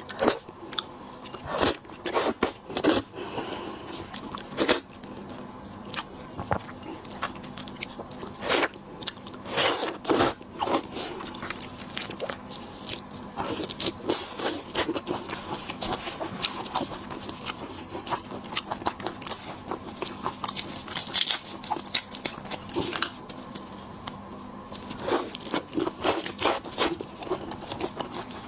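Lobster and shrimp being eaten shell-on close to the microphone: irregular sharp cracks and crunches of shell, with chewing between them.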